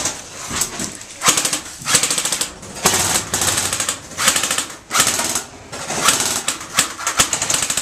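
Airsoft guns firing on full auto: a string of short rapid-fire rattling bursts, each about half a second to a second long, following one another throughout.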